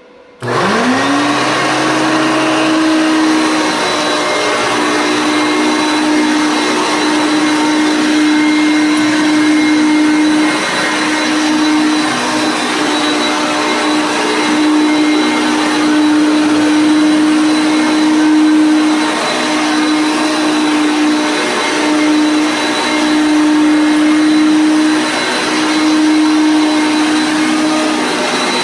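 A 1978 Hoover Concept 1 Heavy Duty Power Drive upright vacuum cleaner switching on, its motor winding up in pitch within about a second, then running loud and steady on carpet with a worn brush roller.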